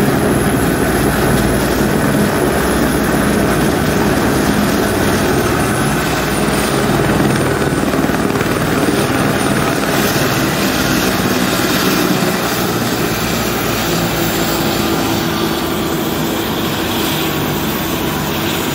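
Helicopter on the ground with its engine and main rotor running: a loud, steady helicopter noise that eases slightly about two-thirds of the way through.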